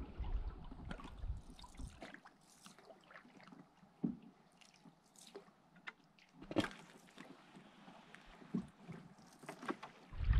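Canoe being paddled: faint water sloshing and dripping with a few light knocks, the loudest about four and six and a half seconds in. Wind rumbles on the microphone for the first couple of seconds.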